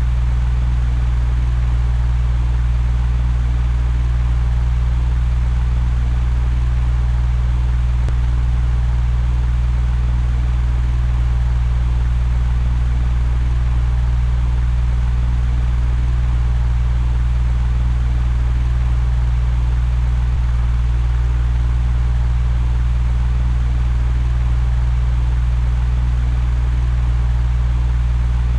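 Electric fan running steadily: a constant low hum with an even rush of air above it.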